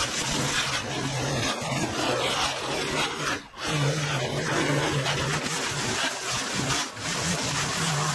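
Stihl line trimmer running at high revs, its spinning line cutting through long grass. The engine eases off briefly about three and a half seconds in, then revs straight back up.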